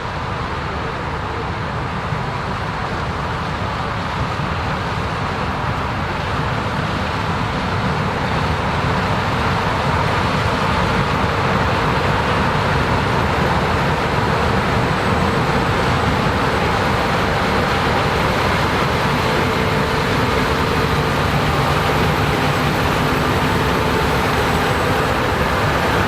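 Combine harvester running while harvesting corn, a steady machine drone with a few held tones, growing louder over the first ten seconds or so and then holding steady.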